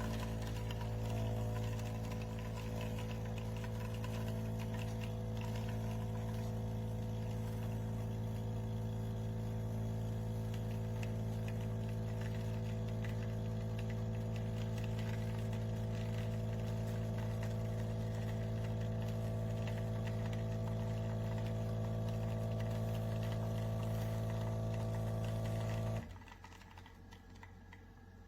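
Steady machine hum with several steady pitched tones and faint clicking, cutting off suddenly near the end.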